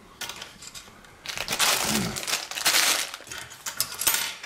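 Plastic parts bag crinkling for about two seconds, followed by a run of light clicks and clacks from plastic construction pieces being handled on a table.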